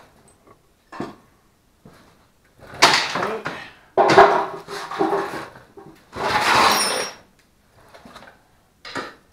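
Intermittent clunks, scrapes and rattles of parts and hand tools being handled on a concrete shop floor, with the loudest knocks and shuffles between about three and seven seconds in.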